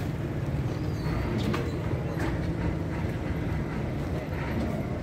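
Steady low engine drone, like an idling engine, with a few faint knocks in the first half.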